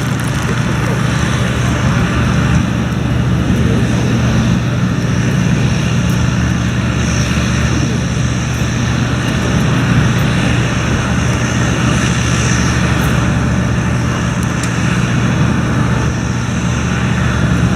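Aircraft engine running steadily: a constant low drone with an even hiss over it.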